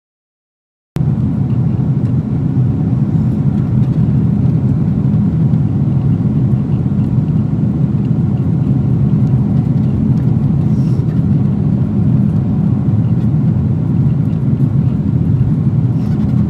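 Steady low rumble of jet airliner cabin noise in flight, starting abruptly about a second in and cutting off suddenly at the end.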